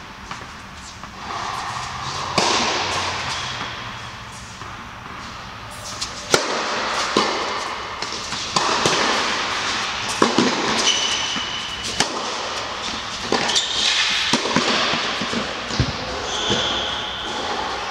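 Tennis rally: a ball struck by rackets and bouncing on the hard court every second or so, with shoe squeaks on the court surface, echoing in a large indoor hall.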